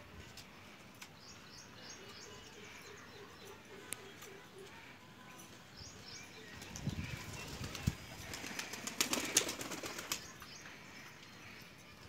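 Pigeons flapping their wings: a burst of quick wing beats about nine seconds in, with a few soft bird calls earlier.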